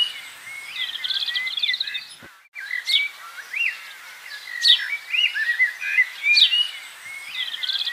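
Small songbirds chirping and singing: quick trills, short rising whistles and sharp chirps, repeating, with a brief break about two and a half seconds in.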